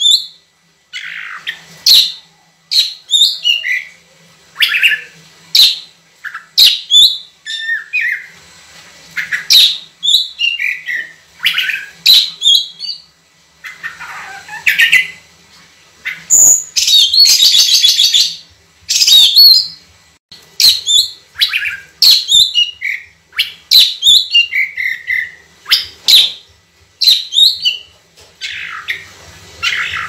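Oriental magpie-robin (kacer) singing in full voice: loud, clear whistled phrases, many sliding down in pitch, one every second or two. About halfway through comes one long, dense run of rapid notes lasting about three seconds.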